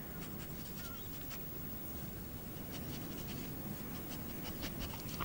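Faint, steady scratchy rustling noise with scattered soft ticks, and a brief wavering high chirp about a second in.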